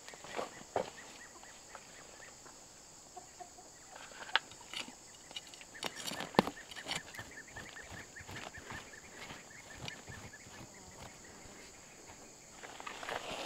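Machete blade chopping and scraping into loose soil, with a few sharp strikes, and hands rustling through the dirt. Behind it, a steady high insect drone and chickens clucking.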